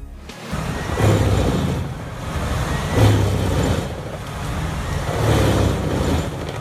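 Heavy timber truck engine running under load, a low rumble with mixed noise that swells three times.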